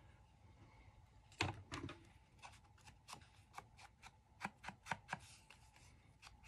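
Faint handling of craft tools on a cutting mat: a louder knock about a second and a half in, then a run of light, irregular taps as a foam ink blending tool is dabbed along the edges of a paper card to ink them.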